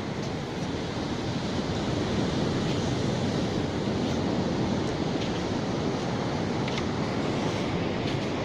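Sea surf washing onto the beach: a steady rush of waves that swells a little about two seconds in, with some wind noise.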